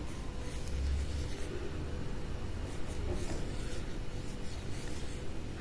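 Cotton swab rubbing over the front glass of a camera lens, a faint dry scratchy rubbing.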